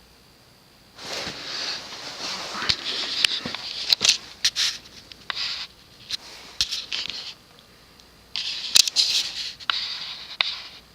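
Rustling and crackling handling noise in three bursts, about a second in, in the middle and near the end, broken by sharp clicks.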